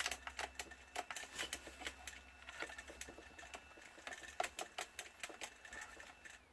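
Rapid, irregular light clicking and ticking, with a faint steady high whine that stops near the end, from a powered-up DJI Phantom 3 Pro whose gimbal is twitching with a faulty ribbon cable and a gimbal-disconnect fault.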